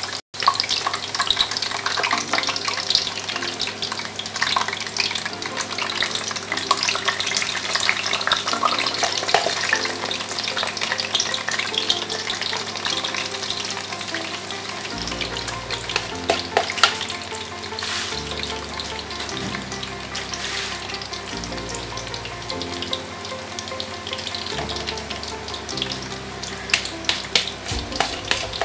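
Weci (vegetable fritter) batter deep-frying in hot oil in a pan: a steady sizzle full of crackles, with a few sharper pops.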